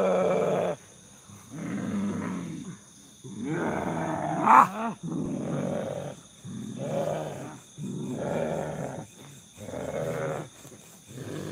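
A man's voice growling and roaring like an animal, in about eight rough cries roughly one every second and a half, with one louder, rising cry near the middle. The cries come from a man held down on the ground in what is treated as a possession fit.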